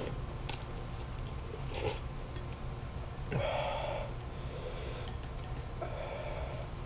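Eating sounds from a bowl of very spicy instant noodles: a slurp at the start, then mouth clicks while chewing. There are heavy breaths through the nose about three seconds in and again near the end, as the chilli heat sets in.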